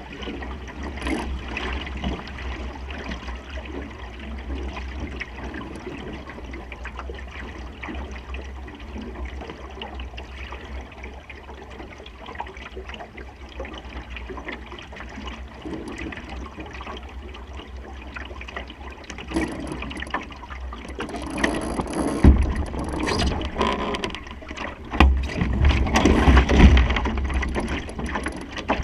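Water rushing along a Supernova sailing dinghy's hull under way in a fresh breeze, with wind buffeting the microphone and small clicks and knocks from the boat's fittings. It surges louder for the last third.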